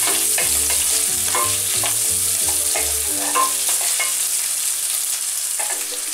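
Sausage pieces and shallot sizzling in butter in a high-sided pot, stirred with a wooden spoon that scrapes and knocks against the pan now and then.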